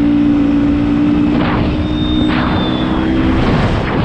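Motorcycle engine running steadily under way, with wind noise rushing over the microphone. A little past three seconds the steady engine note falls away briefly.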